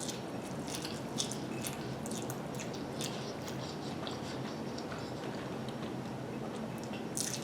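A person chewing lo mein noodles close to the microphone, with short, irregular wet mouth clicks.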